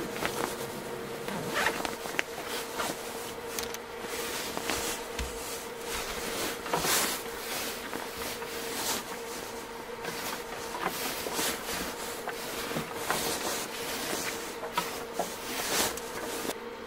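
Irregular rubbing or scraping strokes, each under a second, repeating unevenly over a faint steady hum.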